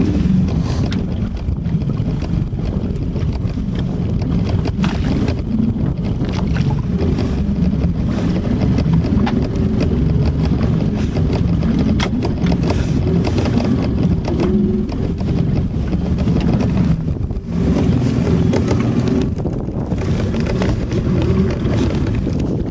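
A small fishing boat's engine running steadily with a low, even note, and wind gusting on the microphone.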